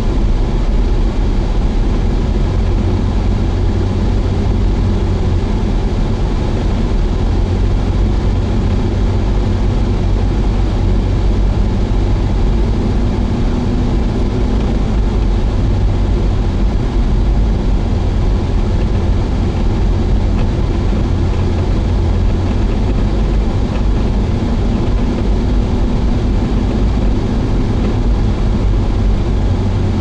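A car's engine and tyre noise heard from inside the cabin while driving at a steady speed: a constant low rumble with no sudden events.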